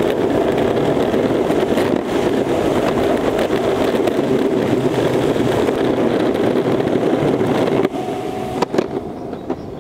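Longboard wheels rolling fast over asphalt with a steady rumble that drops off about eight seconds in, followed by a couple of sharp knocks.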